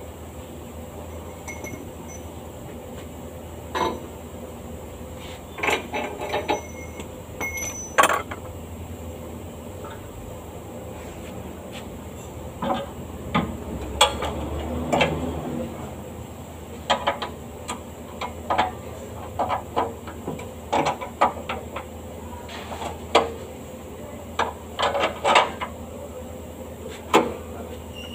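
Irregular metallic clanks and clinks of hand tools and metal parts being handled under a car on a lift, more frequent in the second half, over a steady low hum.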